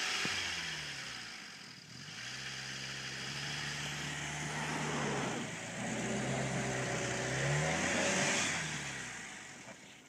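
Jeep Wrangler YJ engine revving under load as it pulls a stuck SUV on a tow strap, its tyres spinning in the snow. The revs dip about two seconds in, climb and hold, then fall away near the end.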